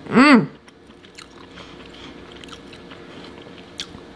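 A short hummed "mmm" of enjoyment at the very start, then faint wet mouth clicks of chewing.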